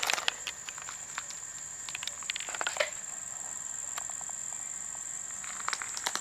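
Footsteps crunching at irregular intervals on a wood-chip mulch path, over a steady high-pitched trill of insects.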